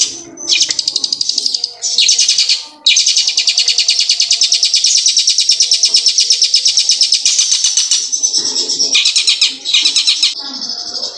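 Caged long-tailed shrike (cendet) singing loud, fast rolling trills in imitation of a prinia's (ciblek) song. A few short trills open the song, then one long rapid trill runs for about five seconds, followed by more short bursts and a held high note near the end.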